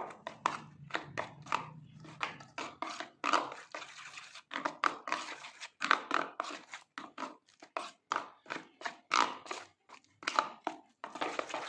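Steel spoon beating a thick rava (semolina) and curd batter in a stainless steel bowl: quick, irregular clicks and scrapes of the spoon against the bowl, a few strokes a second.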